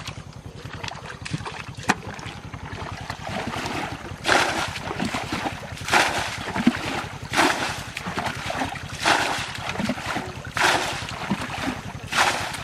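Water splashing in regular strokes, about one every second and a half, starting about four seconds in, over a steady low rumble.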